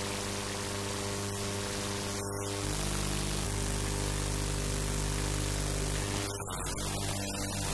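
TAPIR electromagnetic field detector's headphone output: a steady electrical buzz of stacked low tones under a hiss of static, the smartphone's electromagnetic field made audible as the detector is held against it. The buzz changes pitch pattern about two and a half seconds in, and the hiss drops out briefly a few times.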